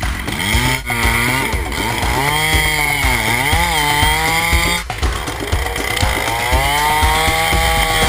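Chainsaw engine running, its pitch rising and falling several times as the throttle is worked, with two brief breaks in the sound.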